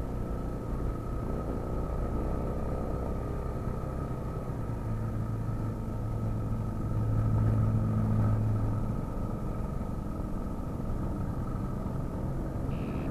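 Street traffic heard from a moving bicycle: a steady low rumble of passing cars, with a motor vehicle's engine drone swelling louder about halfway through and then fading.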